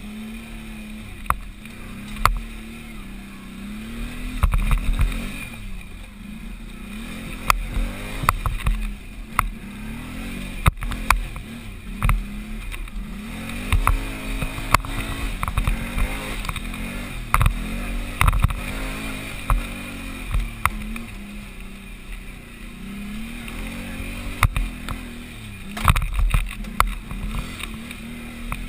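Can-Am 500 XT ATV engine revving up and falling back over and over as it climbs a rough forest trail, with sharp knocks as the machine jolts over roots and rocks.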